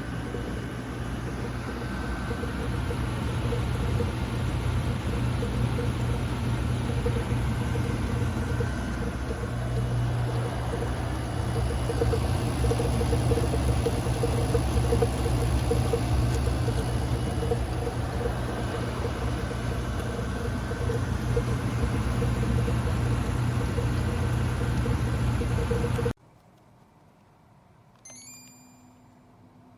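Shinco 12,000 BTU portable air conditioner running steadily, its compressor and fan giving a constant low hum with a steady midrange tone. The noise cuts off abruptly a little before the end. About two seconds later comes a short electronic chime of quickly falling notes, then a faint steady low hum.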